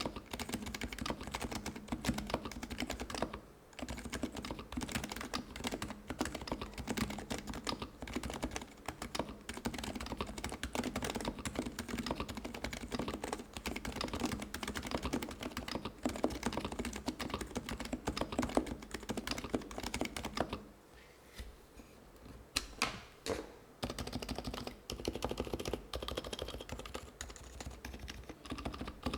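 Typing on a custom HHKB Pro2 keyboard with Topre electrostatic capacitive switches (Realforce R3 45 g domes), a dense stream of keystrokes. It breaks off briefly about three seconds in, and later there is a lull of about three seconds with only a few single strokes before the typing picks up again.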